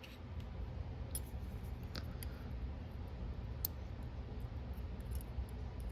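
A few faint, scattered light clicks of small metal lock parts being handled: driver pins being taken out of a Master Lock 575 padlock cylinder. A steady low hum runs under them.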